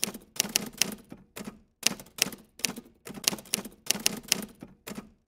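Rapid typewriter-like clacks of keys being struck, about five a second in uneven runs broken by short pauses.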